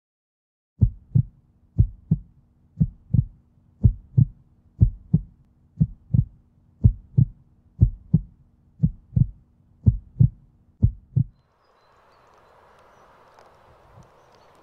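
Heartbeat sound, a double 'lub-dub' thump about once a second over a faint low hum, eleven beats, stopping suddenly about three seconds before the end. A faint steady hiss of outdoor ambience follows.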